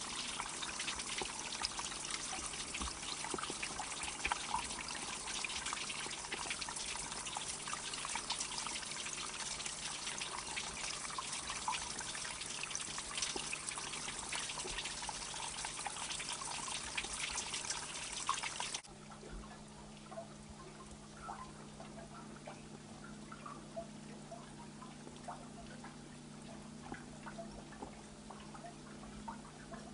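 Water trickling and splashing steadily, like a small stream running over rocks. About two-thirds of the way through it cuts off suddenly to a much quieter stretch with faint, scattered drips over a low steady hum.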